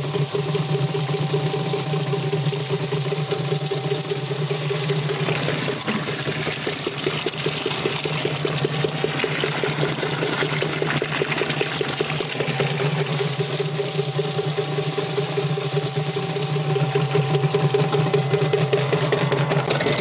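YardBird chicken plucker running: its electric motor turns the rubber-fingered feather plate with a steady hum while water sprays and splashes inside the stainless steel tub.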